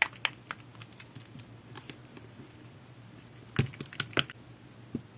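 Jelly-textured slime being pressed and worked by hand, making sharp sticky clicks and pops: a few right at the start, a quick cluster a little past halfway, and one more near the end.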